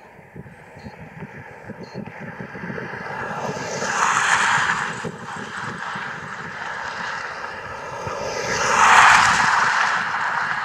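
Boeing 787-8 jet engines at takeoff thrust during the takeoff roll: a rushing jet roar that builds and swells twice, loudest about four seconds in and again around nine seconds.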